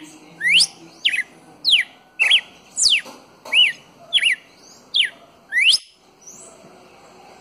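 Red-cowled cardinal singing: a run of about ten loud, clear whistled notes, a little over half a second apart, most sweeping steeply down in pitch and some rising or arching. The song stops about six seconds in.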